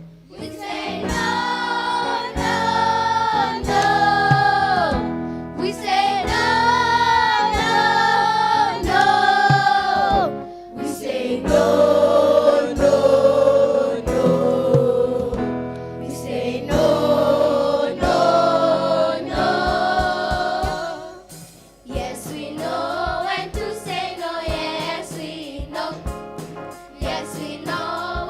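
A choir singing a gospel song over backing music with a steady beat, in held, sliding phrases.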